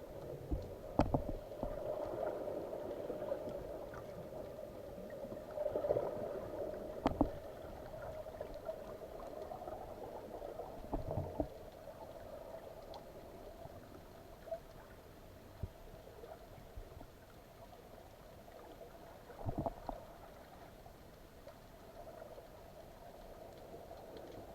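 Underwater sound picked up by a camera in a waterproof housing: a steady mid-pitched hum, broken by scattered sharp clicks and knocks, including a cluster about 19 seconds in.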